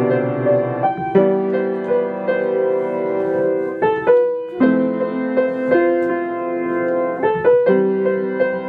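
Piano playing a slow run of held chords, changing every second or so.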